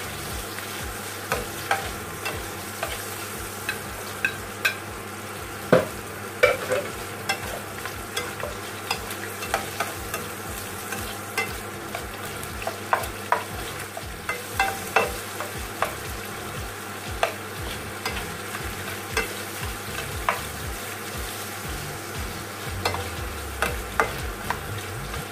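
Chopped onion and garlic sizzling in oil with chicken pieces in a frying pan, stirred with a spatula that scrapes and taps sharply against the pan at irregular moments throughout.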